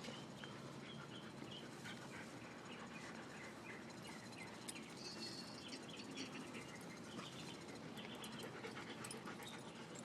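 Faint sounds of dogs at play, with scattered short squeaks and small clicks throughout.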